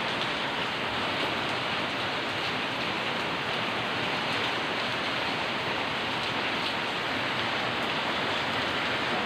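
Steady monsoon rain falling on a wet tiled courtyard: an even, unbroken hiss with faint scattered drop taps.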